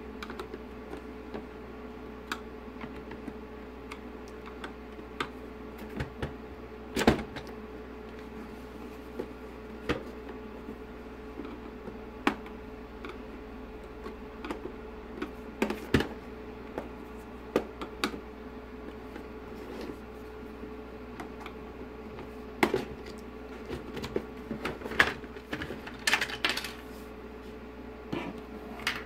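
Plastic catches of a car instrument cluster's back cover being pried loose with a screwdriver: scattered sharp clicks and snaps of plastic on plastic, with scraping between them. A steady hum runs underneath.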